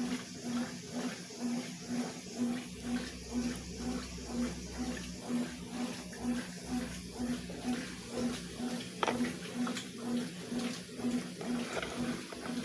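Consul 12 kg top-load washing machine agitating during the rinse: the motor hums in pulses about twice a second as the agitator swings back and forth, churning and sloshing the water around the load.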